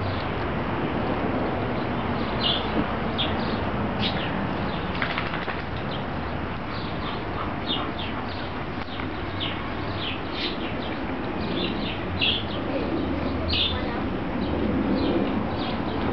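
Steady rushing background noise with small birds chirping briefly now and then.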